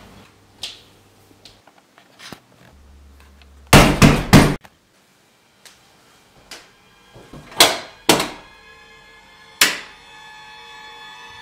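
Knocking on a front door: three loud knocks in quick succession about four seconds in, then three more spaced out over the following few seconds. Music begins to rise near the end.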